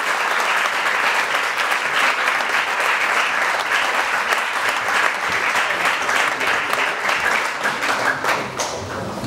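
Audience applauding, many hands clapping in a dense, steady patter that thins out near the end.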